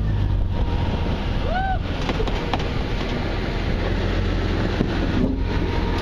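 Jeep Cherokee XJ engine running slowly as it crawls over rocks, mixed with heavy wind buffeting the microphone. About a second and a half in there is one short rising-then-falling high tone.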